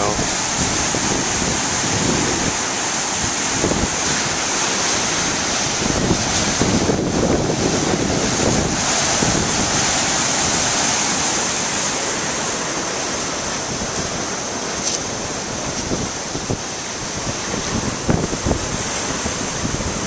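Large storm waves breaking and foaming over a rocky shore, a continuous heavy rush of surf. High wind buffets the camcorder's microphone throughout with low gusty thumps.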